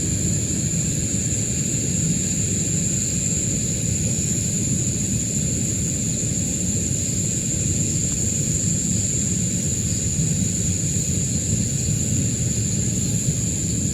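A continuous high-pitched insect drone over a steady low rumble, unchanging throughout.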